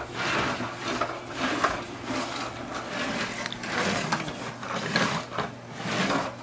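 Hard plastic wheels of a toddler's ride-on trike rolling and grinding across a vinyl floor as it turns: a rattling, scraping noise that swells and fades with each push.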